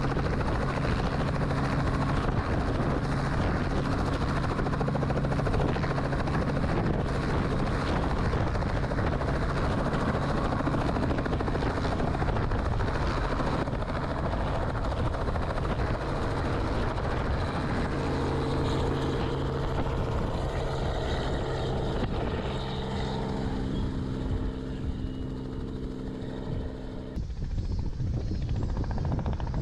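Robinson helicopter's rotor and engine running steadily as it sits on the ground, lifts into a hover and flies off, the pitch of the rotor sound shifting as it moves away.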